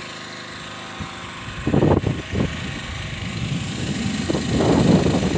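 Small generator engine running steadily under its box cover, a low even hum. About a second and a half in, a loud rushing noise comes in over it and builds toward the end.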